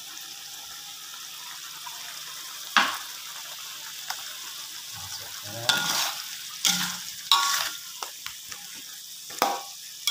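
Thick spice paste with shrimp, corn and potato sizzling steadily in a wok, while a metal spoon stirs it and knocks and scrapes against the pan several times from about three seconds in.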